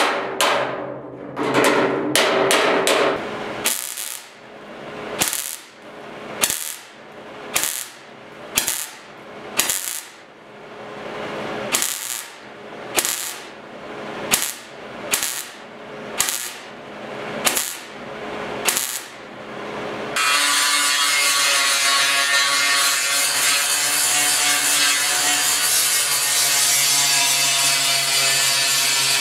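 Hammer and dolly striking the sheet-steel inner box side of a 1972 Ford pickup in quick blows for the first few seconds. Then a MIG welder laying short tack welds, one short crackling burst about every second. About 20 seconds in, an angle grinder starts and grinds the weld down steadily.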